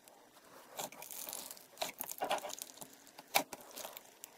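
Hand pressing and squeezing thick slime mixed with foam beads: crackling and popping, with several sharp pops and the loudest about three and a half seconds in.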